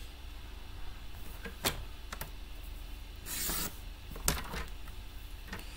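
Sliding-blade paper trimmer cutting a piece of cardstock: the blade carriage is pushed down the rail with a short rasp about three and a half seconds in. A few light clicks and taps come from the card and trimmer being handled.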